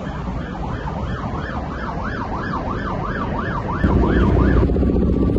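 Emergency-vehicle siren wailing in a fast up-and-down yelp, about three sweeps a second, over a low traffic rumble. A bit under four seconds in, a louder low rumbling noise comes in, and the siren stops shortly after.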